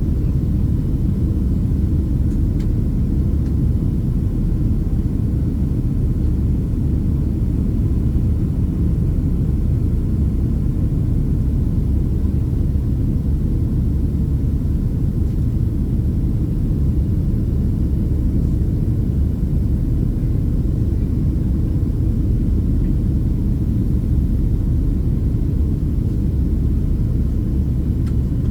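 Steady low rumble of a Boeing 767-300ER in flight, engine and airflow noise heard inside the passenger cabin.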